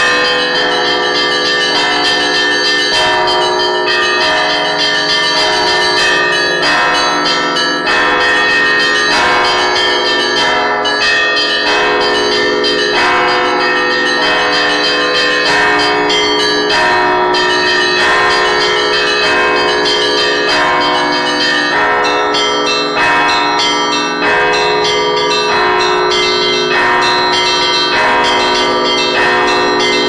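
Russian Orthodox church bells rung by hand from inside the belfry: a row of small bells struck quickly and continuously by rope over deeper, longer-ringing bells, many pitches overlapping in one unbroken peal.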